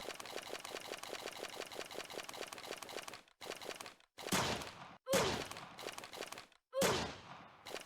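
A string of separate sound-effect clips. First comes a rapid, even rattle of clicks for about three seconds. Then three short, loud bursts follow, each starting with a falling tone and fading away, each cut off abruptly with a moment of silence between.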